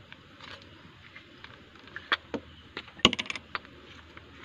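Small clicks and taps of a diving flashlight's metal parts being handled as it is taken apart, with a quick rattle of clicks about three seconds in.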